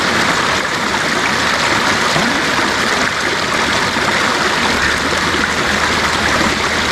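Shallow mountain stream running over rocks: a steady, even rush of water.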